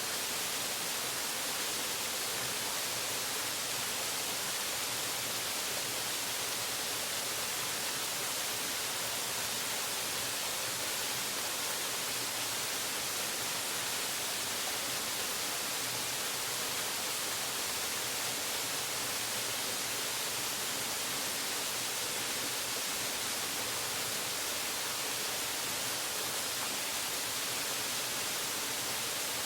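Waterfall pouring: a steady, unbroken rush of water, bright and hissy.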